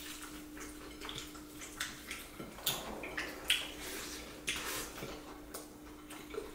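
Close-miked eating sounds: wet chewing and lip-smacking as mouthfuls of rice are eaten by hand, a string of short irregular smacks and clicks.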